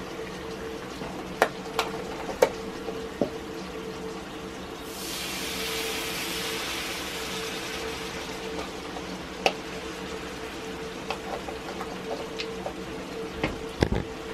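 Liquid poured from a carton into a hot cast iron skillet of butter-and-flour roux, hitting the pan with a sudden loud hiss about five seconds in that slowly dies down. A wooden spatula knocks and scrapes against the skillet a few times before and after.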